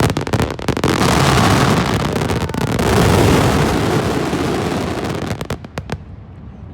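Aerial fireworks in a finale barrage: a dense run of bangs and crackling bursts that blend into one loud continuous crackle, thinning to a few last separate bangs about five and a half seconds in, then dying away.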